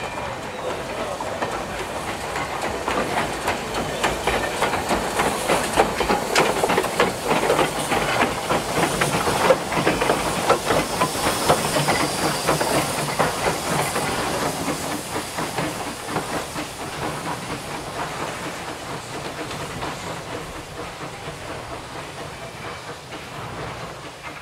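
Two industrial saddle-tank steam locomotives, one a Peckett, working a short goods train past at close range. They give rapid exhaust beats and steam hiss, with wheels clicking over the rail joints. It is loudest as the engines pass, about halfway through, then fades as the train draws away.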